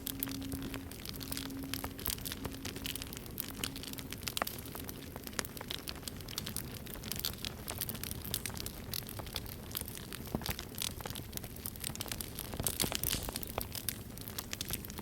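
Campfire crackling with many sharp pops, busiest about 13 seconds in. Over it, the low pulsing hum of a struck singing bowl fades away in the first four seconds or so.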